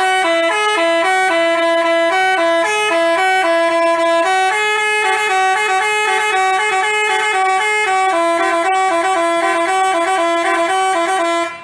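Basuri multi-tone telolet bus horn playing a quick tune of short stepped notes, starting sharply and cutting off suddenly near the end.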